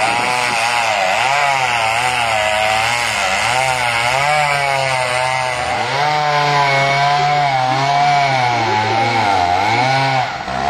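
Freshly rebuilt Stihl 045 AV Super two-stroke chainsaw running at high revs while cutting into a large tree trunk. Its pitch rises and falls about once a second as the chain loads and unloads in the cut, sagging lower for a few seconds in the second half.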